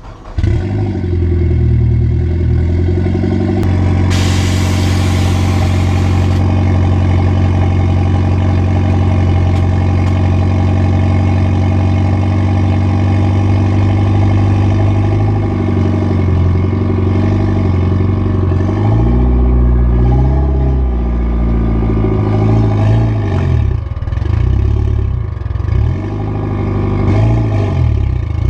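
Mitsubishi Lancer Evolution X's turbocharged 2.0-litre four-cylinder engine running steadily, then its revs rising and falling from about fifteen seconds in as the car drives off. A loud hiss lasts about two seconds, starting about four seconds in.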